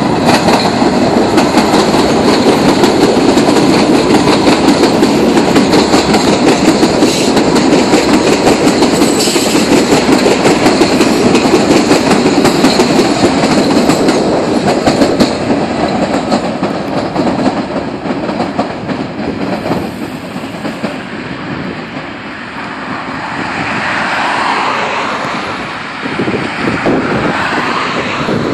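MBTA Red Line subway train passing close by on a bridge, its wheels clattering over the rail joints. It is loud for about the first fifteen seconds, then fades as it moves away, and a softer swell of noise rises and falls near the end.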